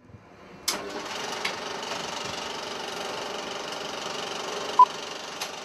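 Film projector sound effect: a fast, steady mechanical clatter that starts with a sharp click under a second in, with a short high beep a little before the end, then fading away.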